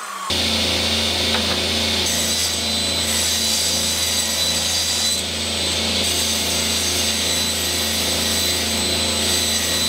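Table saw running with its dust extraction, cutting a wood panel: a steady, loud machine hum with a high whine that sets in abruptly a moment in.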